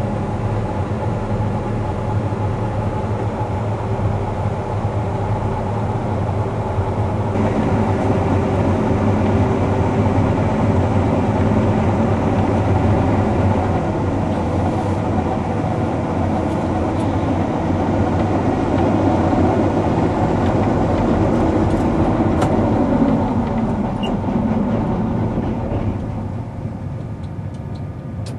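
Gleaner S77 combine harvester running steadily while cutting wheat, a loud, even mechanical drone; one tone sinks in pitch about three-quarters of the way through, and the sound grows quieter shortly before the end.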